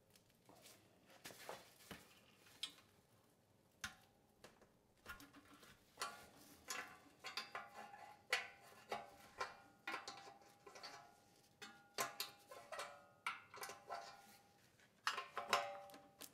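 Irregular metallic clicks and clinks with a brief ring, from a wrench on bolts and from the steel muffler and heat shield being worked loose on a small engine. They get more frequent from about the middle on, with a close cluster near the end.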